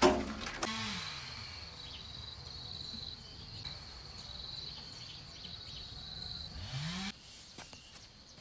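A short clatter as a metal wheelbarrow tips its sand onto concrete. Then a steady high, pulsing insect trill that stops about seven seconds in.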